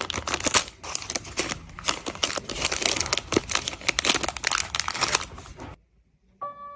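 Packaging being handled for an unboxing: dense crinkling and rustling with some tearing, which stops abruptly about five and a half seconds in. A brief steady tone follows near the end.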